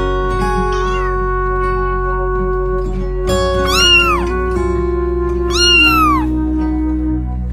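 A cat meows over sustained background music: a faint short call about a second in, then two clear meows about two seconds apart, each rising and then falling in pitch.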